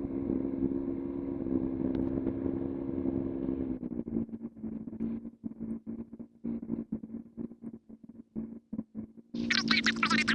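Cessna 182's piston engine and propeller running at a steady taxi idle. From about four seconds in the drone cuts in and out rapidly and choppily. Near the end a louder, different sound with much more treble starts abruptly.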